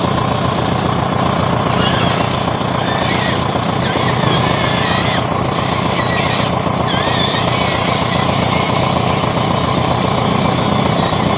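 Radio-controlled Hitachi excavator model running, its motor and drive giving a steady, dense mechanical rattle.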